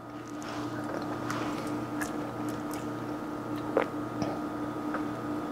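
Small clicks and wet mouth sounds of someone tasting egg-white whipped cream off a spoon, the sharpest click about four seconds in, over a steady low hum.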